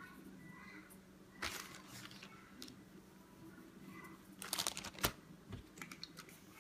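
Faint crinkling and rustling of dry ground hay being pinched between fingers and sprinkled by hand onto a cactus pad, with a sharp click about five seconds in.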